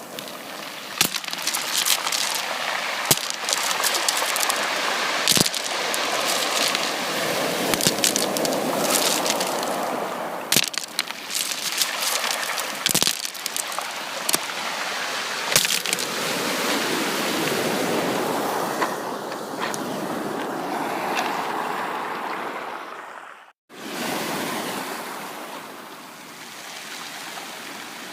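Sea waves washing in and out, swelling and easing, with many sharp crackles through the wash. The sound drops out to silence for a moment about three-quarters of the way through, then picks up again.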